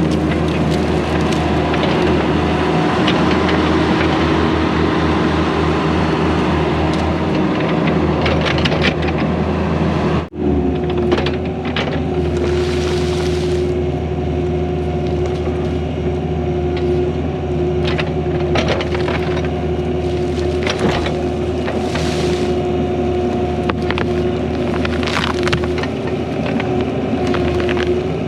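Skid steer's diesel engine running steadily under load while its bucket works at a dead tree's roots, with scattered cracks and knocks. The engine note shifts slightly higher about ten seconds in.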